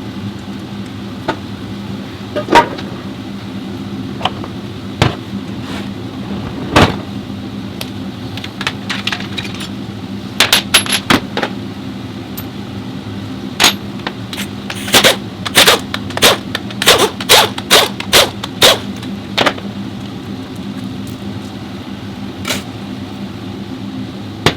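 Workshop work on a car transmission: sharp metal clinks and knocks of tools and parts, irregular at first, then coming about twice a second near the middle. A steady low hum runs underneath.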